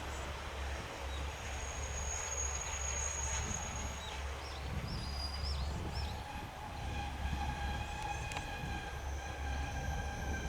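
Diesel railcar running at a level crossing, a steady low throbbing rumble. About seven seconds in a steady high tone with overtones joins it and holds.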